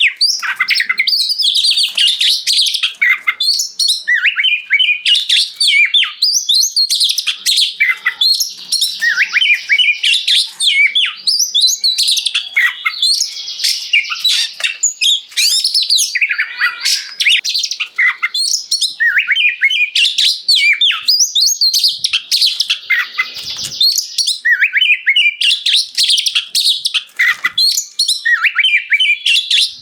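Oriental magpie-robin singing without pause: a fast, varied run of high whistles, trills and chirps.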